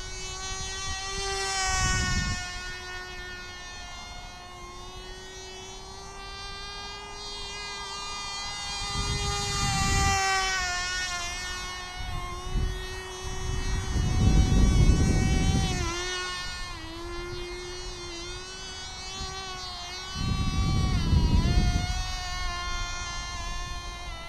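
Cox TD .010 glow engine running in flight on a small RC plane: a thin, high, steady buzz whose pitch dips and rises slightly as the plane manoeuvres. The engine is down on power, which the owner puts down to a worn piston and cylinder. Several gusts of low rumbling noise come and go over it, the loudest just past halfway.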